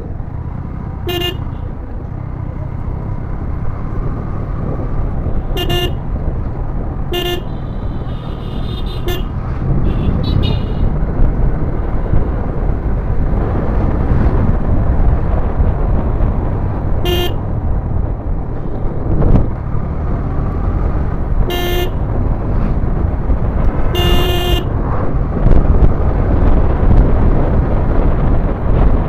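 Motorcycle riding through traffic: steady engine and wind noise that gets louder about a third of the way in, with a horn giving six short toots of the same pitch, the last one longer.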